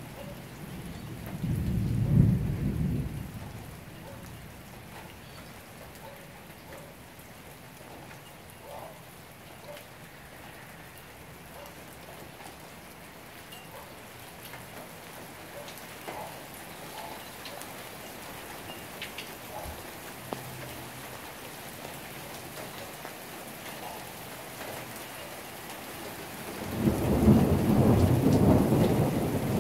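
Steady rain falling during a thunderstorm. There are two rumbles of thunder: a short one about two seconds in, and a longer one that starts near the end.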